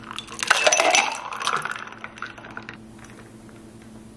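Ice cubes rattling and clinking in ribbed glass tumblers as iced espresso is poured back and forth between two glasses to mix it. The clatter stops a little under three seconds in.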